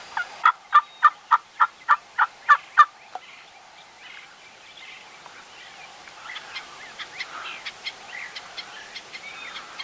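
A run of about ten turkey yelps, evenly spaced at roughly three a second, then stopping about three seconds in; faint small bird chirps follow.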